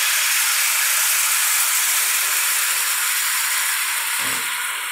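Fish-sauce, sugar and seasoning mixture sizzling in hot oil in a pan with frying garlic and shallots: a loud, steady hiss that eases slightly near the end. A soft knock about four seconds in.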